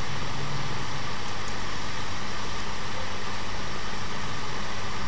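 Steady background hiss with a faint low hum, even and unchanging throughout: the recording's constant noise floor, with no clicks or other events standing out.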